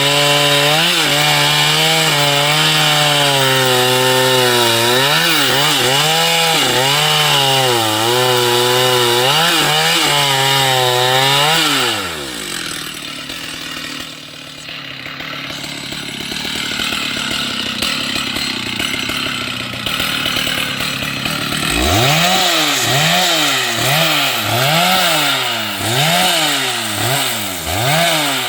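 Two-stroke chainsaw running at full throttle and cutting wood, its pitch wavering under load. About twelve seconds in the throttle is released and the engine drops back. From about 22 seconds it is revved in quick repeated blips, rising and falling roughly twice a second.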